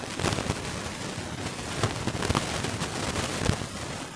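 Thin Bible pages being leafed through and handled: a dense papery crackle and rustle with many sharp clicks.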